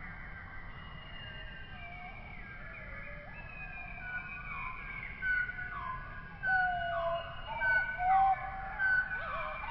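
Many high-pitched chirping calls, short falling whistles overlapping one another, growing louder and more frequent from about halfway through.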